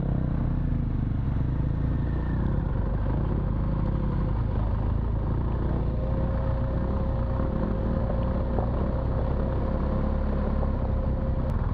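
BMW R1200 GS Adventure boxer-twin engine running as the motorcycle rides a dirt trail, under a steady low wind rumble on the microphone.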